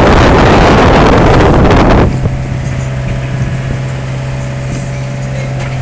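Strong wind buffeting the microphone, with rushing and breaking waves, on a sailboat in rough sea. About two seconds in the wind noise cuts off sharply as the camera moves behind the cockpit windows, leaving a steady low hum from the boat's engine.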